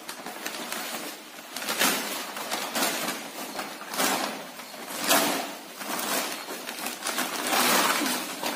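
Repeated rustling, pouring noises, four short ones, as dry powder and compost are tossed by hand onto a heap and plastic packets of powder are handled.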